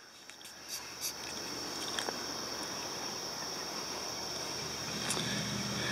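Steady high-pitched chirring of insects in the yard, an unbroken drone, with a few faint clicks.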